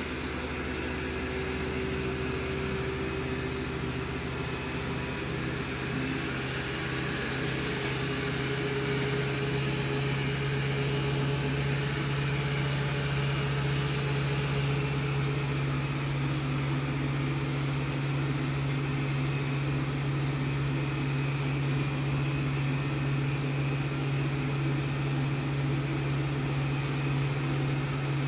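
Rowenta X-plorer Serie 60 robot vacuum cleaner running: a steady motor and suction hum, growing a little louder about eight seconds in.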